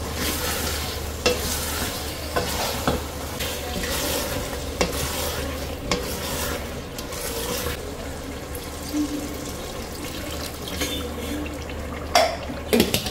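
A wooden spatula stirring and scraping minced meat and potato pieces in a stainless steel pot, with the mix sizzling as it fries, and a few sharper knocks near the end.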